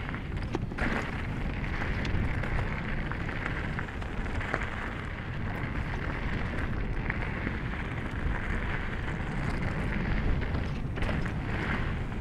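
Canyon Strive mountain bike rolling along a gravel trail: a steady crunch of tyres on gravel under a heavy low wind rumble on the action camera's microphone, with a few sharp knocks from the bike over bumps, near the start and again about eleven seconds in.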